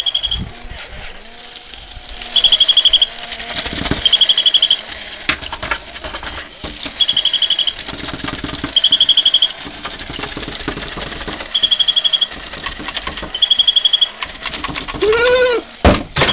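Battery-powered dancing plush chick toy: its electronic peeping comes in short bursts of rapid, high-pitched pulses, two at a time, over the steady whir of its small motor. Near the end there is a brief rising-then-falling squeal.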